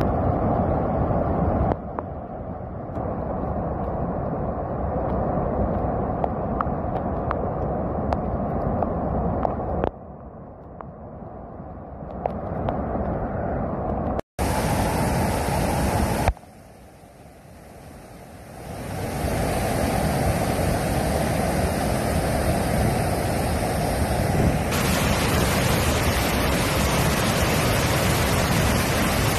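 Muddy floodwater rushing over a dam spillway and churning below it: a loud, steady rushing noise. The level jumps abruptly a few times, with a brief dropout about 14 seconds in and a quieter stretch around 16 to 19 seconds.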